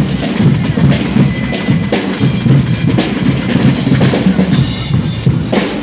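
Guggenmusik percussion section drumming a steady, dense rhythm on snare drums and bass drums, with a trolley-mounted drum kit and cymbals.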